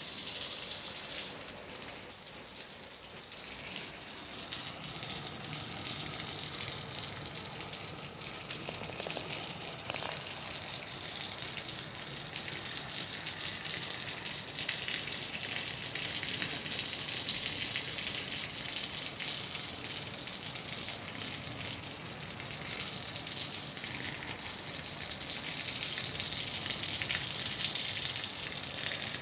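Heavy rain falling steadily onto a flooded street, a dense, even hiss.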